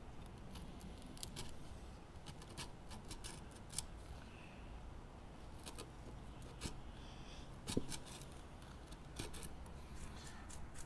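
Chisel paring end grain in a bowtie inlay recess cut into a wooden stump: a string of short, irregular slicing clicks and scrapes, with the loudest cut about eight seconds in.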